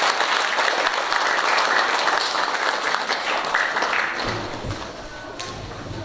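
Congregation applauding in a church, a dense clapping that dies away about four seconds in.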